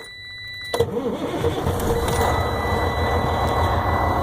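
A semi-truck's diesel engine starts about a second in, its starter jumped directly with a jumper cable, then runs steadily with a low even pulse. A thin, steady high-pitched tone sounds along with it.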